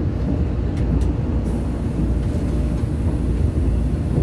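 Running noise inside a Taiwan Railways EMU1200 electric multiple unit at speed: a steady low rumble of the wheels and running gear on the rails, heard from inside the passenger car.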